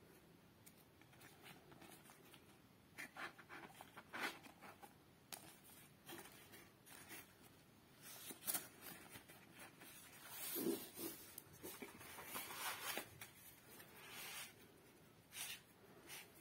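Paper liner crinkling and rustling, with light scrapes and taps on a cardboard food box as it is handled, in short irregular bursts that are loudest a little past the middle.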